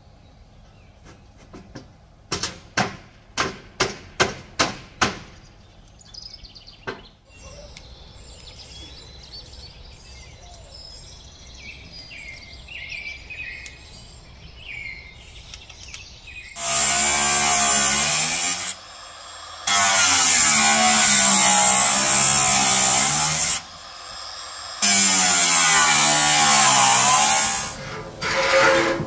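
A quick series of about seven sharp knocks, then birds chirping, then a power saw making three long cuts, its motor pitch sagging and recovering under load. The cuts are the loudest part.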